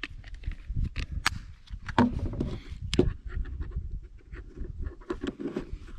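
Irregular clicks and knocks of a metal hand coffee grinder being handled and assembled, its top and crank handle being fitted on.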